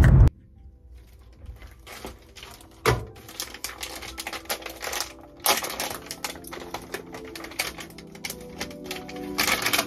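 Crinkling and rustling of a plastic-wrapped IV fluid bag being handled, with a scatter of light clicks and taps and a sharper knock about three seconds in. Soft background music comes in a little past halfway.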